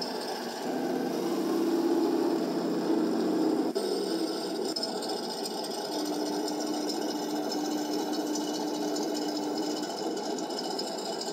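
Small electric motors and gearboxes of a 1/16-scale radio-controlled T-34-85 tank whining, the pitch changing in steps, with one steady tone held for about four seconds near the middle.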